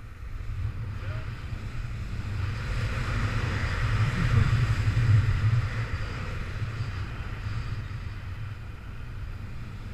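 Wind rushing over the camera microphone of a paraglider in flight: a steady low rumble that swells about halfway through, then eases.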